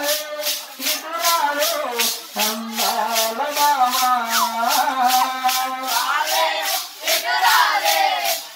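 Devotional bhajan: a voice singing a melody over rhythmic jingling hand percussion, shaken or struck about three times a second.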